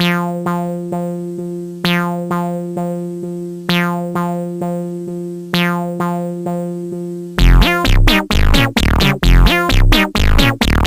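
Electronic background music. Decaying synth-keyboard notes repeat about every half second, then about seven seconds in a louder part starts with deep bass and quick falling synth sweeps.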